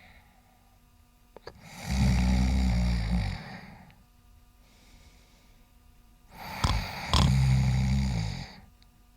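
A sleeping person snoring: two long, loud snores about five seconds apart, each with a low rattling buzz, and a faint breath between them.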